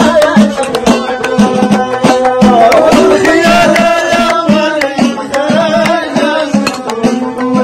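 Moroccan folk music: plucked loutar lutes and a violin playing a wavering melody together over a steady percussion beat.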